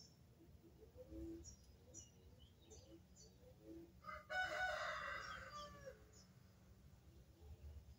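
A rooster crows once, starting about four seconds in and lasting about two seconds, with the call dropping in pitch at its end. Faint short high bird chirps come and go around it.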